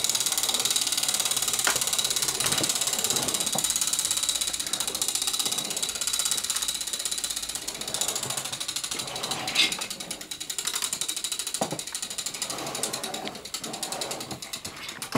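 Battery-powered toy drill on a child's plastic workbench running with a rapid, steady ratcheting whirr, broken by a few sharp plastic knocks. It stops just before the end.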